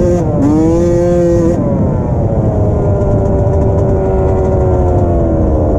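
Honda CR85 two-stroke single-cylinder engine running hard as the motocross bike is ridden. The engine note is held high at first, changes about a second and a half in, then slowly falls. Wind rumbles on the microphone.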